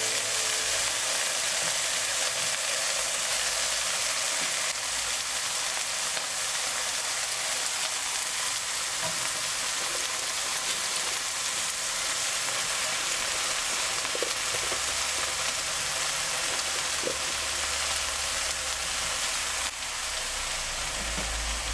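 Instant noodles and vegetables stir-frying in oil in a pan, a steady sizzle with a few light knocks of a wooden spatula.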